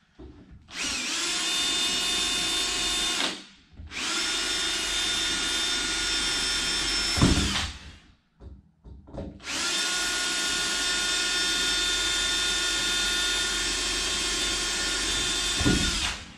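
Cordless drill driving screws into a sliding patio door's frame, running steadily in three separate runs with short pauses between them. A brief knock comes near the end of the second and third runs.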